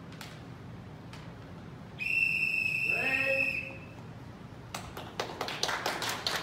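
A referee's or timekeeper's whistle blows once, a steady high tone for about a second and a half, two seconds in, marking the end of the kendo bout. About a second later, scattered hand clapping starts.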